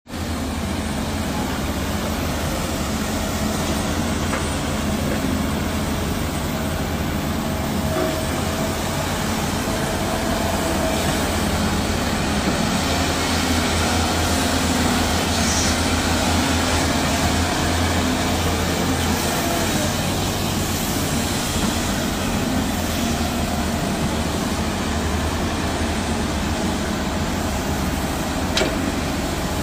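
Diesel engines and hydraulics of crawler excavators, a SANY and a Doosan, running steadily as they dig: a continuous deep rumble, with one sharp click near the end.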